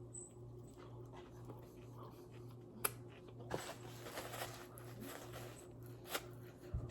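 Quiet eating sounds: soft chewing and rustling with a few sharp clicks, over a steady low hum.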